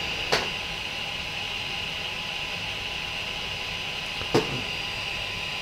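Small cooling fans of a Prusa i3 MK2S 3D printer running steadily with a faint whine while the nozzle and heated bed warm up. Two brief clicks come just after the start and about four seconds in.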